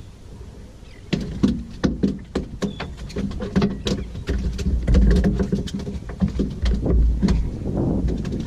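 Irregular knocks, slaps and clicks on a boat, a few a second, starting about a second in. A low wind rumble on the microphone swells in the middle.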